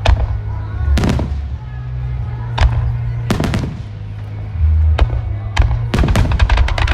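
Aerial firework shells of a music starmine bursting: single booms about a second apart, then a quick run of cracks near the end. Music plays from loudspeakers underneath.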